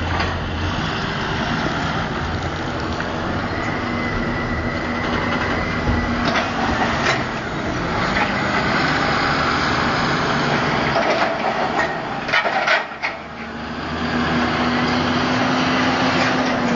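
John Deere 7530 tractor's engine working hard close by as it drives a buck rake over a grass silage clamp, pushing up silage, with a high steady whistle for a couple of seconds about four seconds in. A few sharp knocks come about twelve seconds in.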